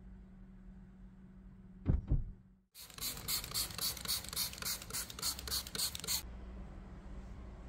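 Two dull thumps about two seconds in, then a spray hissing in rapid even pulses, about five a second, for some three seconds, over a low steady hum.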